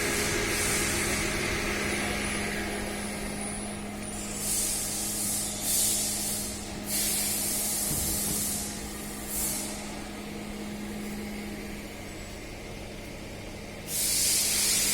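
Hot plate welding machine running, with its pneumatic valves venting compressed air in several short hisses over a steady low machine hum.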